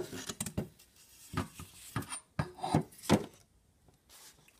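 Handling noise as a removed car evaporator core is turned over in the hands: a series of short rubs and knocks, loudest at the start and about three seconds in, dying away near the end.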